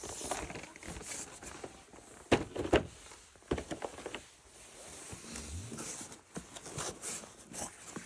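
Hands handling plastic toy parts and packaging: scattered light clicks and knocks with rustling in between, the sharpest knocks a little over two seconds in.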